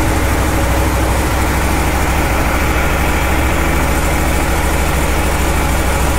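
2021 Aprilia Tuono V4 Factory's V4 engine idling steadily just after a cold start, having sat unstarted for some time.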